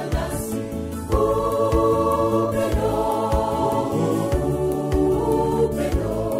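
A mixed youth choir singing a gospel song in harmony, with sustained held chords over a low beat about twice a second.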